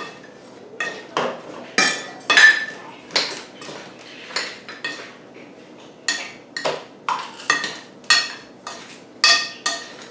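A spoon stirring sliced apples in a ceramic mixing bowl, clinking and scraping against the bowl at irregular intervals, some strikes ringing briefly. A measuring cup scooping oats from a glass jar adds a few more knocks.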